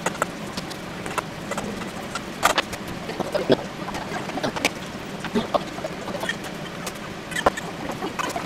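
Irregular clicks and taps of metal utensils against a stainless steel bowl as boiled eggs are mashed and mixed with mayonnaise, over a steady low hum.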